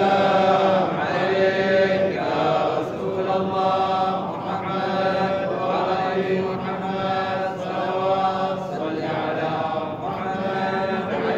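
Wordless devotional vocal chanting: a slow melody of long held notes that rise and fall in pitch.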